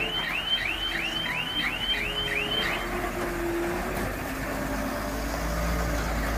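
A dump truck's electronic warning alarm chirping, about three rising chirps a second, which stop about three seconds in. Under it the truck's diesel engine keeps up a low, steady rumble.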